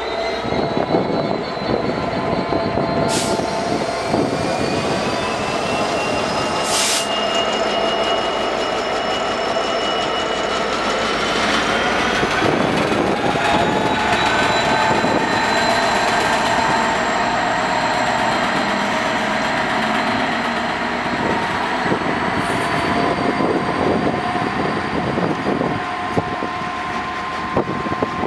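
Several coupled Class 66 diesel-electric locomotives, two-stroke V12 diesels, running slowly past on curved track. Their engines run steadily and grow louder for several seconds in the middle as they pass, over steady high squealing tones from the wheels.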